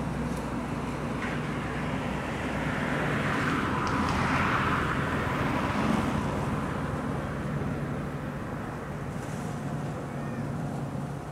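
Outdoor background of distant engine noise, a steady low hum with a passing swell that builds to a peak about four seconds in and then fades away.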